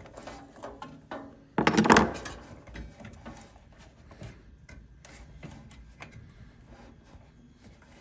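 Hands working inside an espresso machine's housing among its wiring and plastic tubing: rustling and small clicks, with one louder burst of handling noise about two seconds in.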